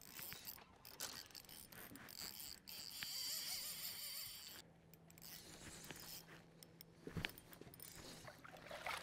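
Fishing reel being cranked, its gears whirring and clicking as line is wound in.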